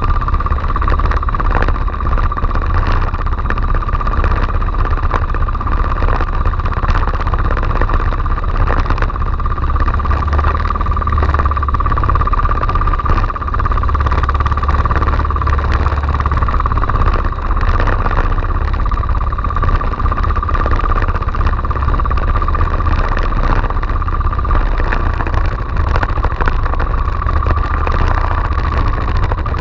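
Outrigger fishing boat's engine running steadily with a constant whine and low rumble, under wind and rushing sea.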